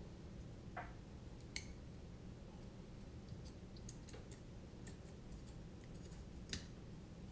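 Faint, scattered clicks and ticks of a carbon-fibre FPV quadcopter frame and its small parts being handled and fitted together, two sharper ones about a second and a half in and near the end, over a low steady room hum.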